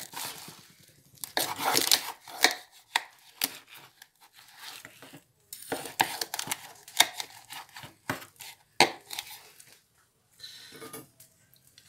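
Large knife sawing through a grilled vacío (beef flank steak) with a carving fork holding it, in several runs of quick back-and-forth strokes separated by short pauses.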